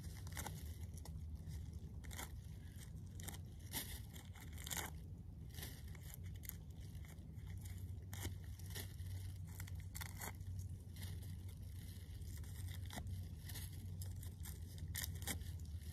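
Shelf mushrooms being torn off a rotting log by hand, with irregular crackles and snaps, and a plastic bag rustling. A low steady hum runs underneath.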